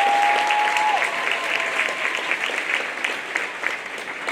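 Audience applauding steadily. A single steady whistle-like tone is held over the applause for about the first second.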